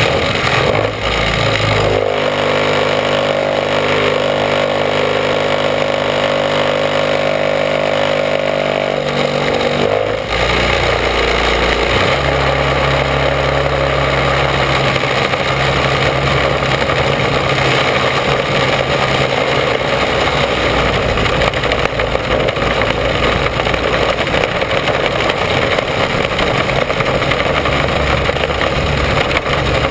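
Mini sprint racing car's engine heard from on board, held at a steady pitch for several seconds, then changing about ten seconds in to a lower, rougher note under a heavy rushing noise.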